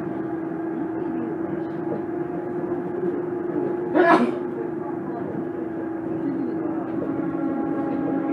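Tama Toshi Monorail 1000 series train running, heard from on board: a steady motor whine held on one pitch, with a short, sharp, loud sound about four seconds in. A second, lower tone joins near the end.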